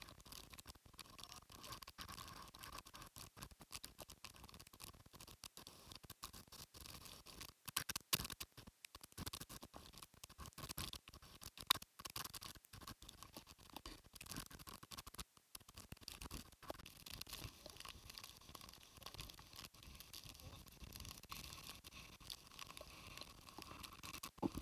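Rain and gusty typhoon wind crackling and scratching on a phone's microphone, an uneven patter of small clicks with a few sharper knocks along the way.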